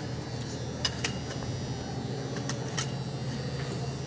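Steady low hum of a large hall's ambience, with a few sharp clicks scattered through it.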